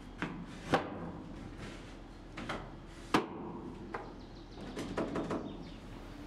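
Timber crossbeams knocking and clunking as they are slotted by hand into wooden OSB rails on a shipping container's corrugated steel wall: a series of separate knocks, the sharpest about three seconds in, with a quick cluster of lighter taps near the end.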